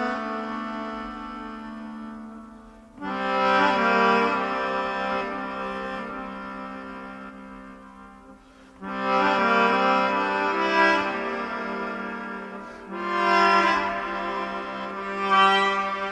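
Instrumental background music of long held chords over a steady low note, with new phrases swelling up about three and nine seconds in and two shorter swells near the end.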